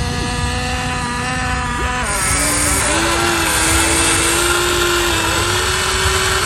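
Remote-control model excavator's electric motors whining steadily. The whine drops to a lower pitch about two seconds in.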